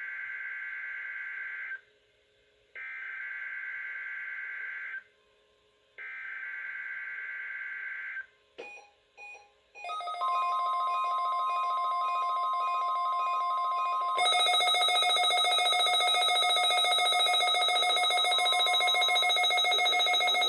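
NOAA Weather Radio weekly test signals. First come three bursts of SAME digital header data, each about two seconds of warbling data tones with a short gap between. About ten seconds in, the 1050 Hz warning alarm tone starts, steady. About four seconds later a louder, buzzier alarm tone joins it and runs on.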